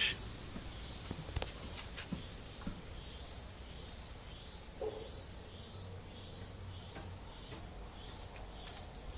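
A high-pitched hiss pulsing about twice a second, over a faint low rumble.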